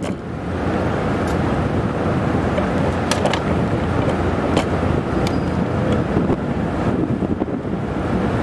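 Wind buffeting the microphone over the steady low rumble of a car ferry's engines, with a few light clicks about three and four and a half seconds in.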